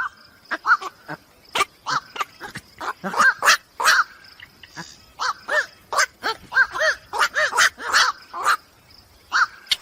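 An animal's short, squeaky calls, each rising and falling in pitch, repeated rapidly two or three a second, mixed with sharp clicks.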